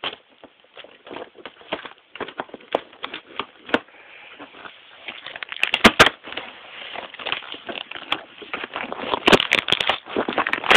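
Cardboard and plastic packaging being cut and torn open by hand: an irregular run of crackles and clicks, busiest in the second half and loudest at the very end.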